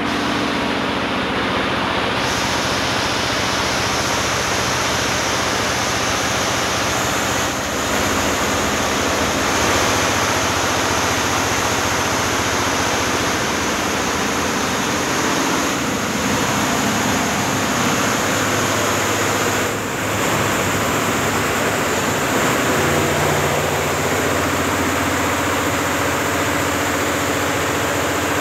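Multi-head computerised embroidery machines running and stitching: a loud, steady mechanical din from the many needle heads working together.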